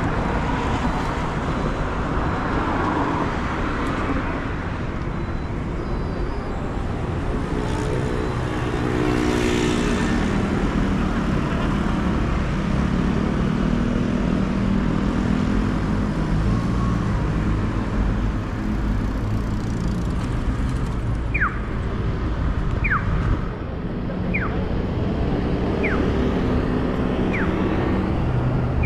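Road traffic at a busy city intersection: cars and taxis running and passing, their engine notes coming and going over a steady rumble. Near the end a pedestrian crossing signal sounds five short falling electronic chirps, about a second and a half apart.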